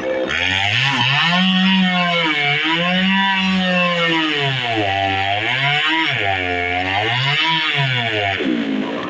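Chainsaw cutting into a tree trunk, its engine pitch rising and sagging again and again as the throttle and the load on the chain change. It starts a moment in and cuts off sharply near the end.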